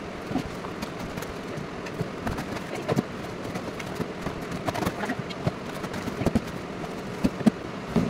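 Glass jars with clip-down buckle lids being lifted out of a cardboard box and set down: scattered light clinks and knocks with cardboard rustling over a steady background hiss.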